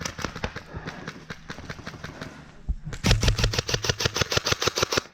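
Airsoft guns firing: scattered single shots and short strings for the first few seconds, then about three seconds in a long rapid full-auto burst that runs for about two seconds and cuts off suddenly.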